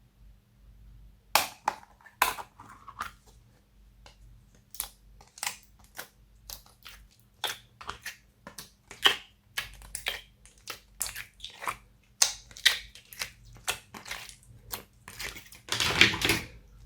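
Slime being squeezed and kneaded by hand: a run of sharp, sticky pops and clicks, one to three a second, thickening into a dense crackle near the end.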